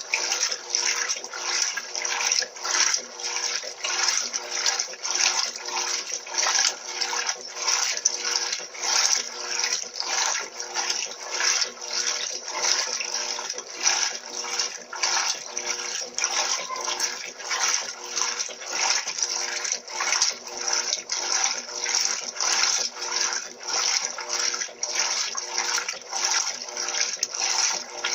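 Electrolux LT12B top-loading washing machine agitating its load in the wash cycle at a low water level: water sloshing in quick, regular surges over a steady motor hum.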